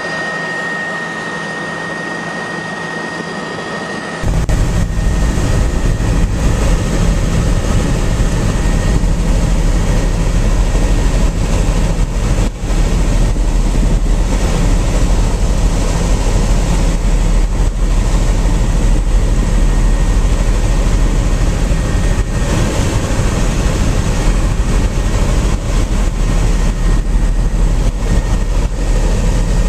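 Helicopter cabin noise: a steady high turbine whine at first, then, about four seconds in, an abrupt change to a louder, deeper, steady rumble of engine and rotor that runs on unchanged.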